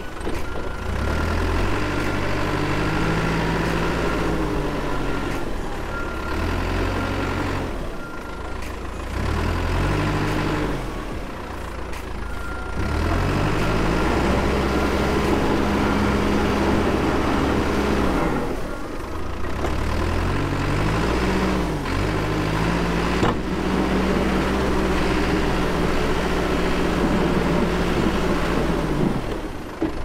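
Cat 420F backhoe loader's diesel engine working under load, its pitch rising and falling repeatedly as the machine drives and pushes snow with a front pusher blade. A short, high beeping tone comes and goes, and there is a single knock about two-thirds of the way through.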